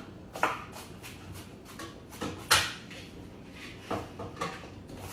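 A handful of irregular knocks and clatters from kitchen items being handled on a counter, the loudest a little after two seconds in.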